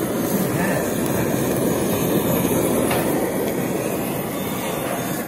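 Butane kitchen blowtorch burning with a steady roaring hiss of flame, searing the topping of a sushi bake.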